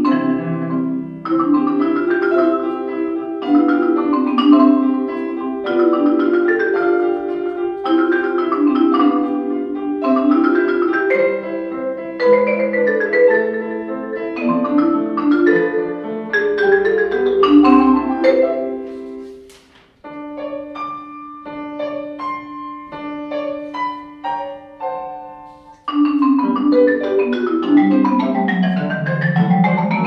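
Concert marimba played with yarn mallets in fast, rippling arpeggio figures, accompanied by grand piano. About twenty seconds in, the music drops to a quieter, sparser passage with a held low note. About six seconds later, the loud running figures return, sweeping down and back up.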